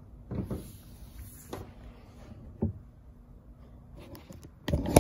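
Handling of plastic helmets on their stands on a table: a few light knocks and bumps as a helmet is set down, then a quick cluster of louder clicks and knocks near the end.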